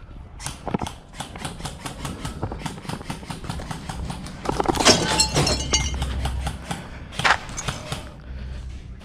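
Quick footsteps running over dry leaves and dirt, a rapid run of crunching steps, with a louder rustling, scuffing stretch near the middle.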